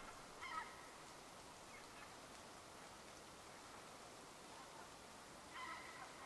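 Near silence broken twice by short squeaky scrapes of a metal utensil against a camp pan during eating, once about half a second in and again near the end.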